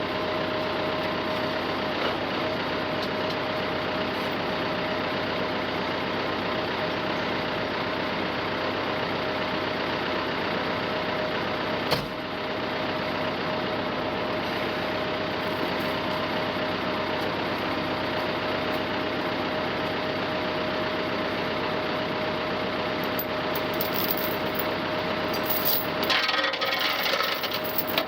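Engine of a farm machine running steadily with a constant whine. There is one sharp knock about twelve seconds in, and a brief harsher, noisier stretch near the end.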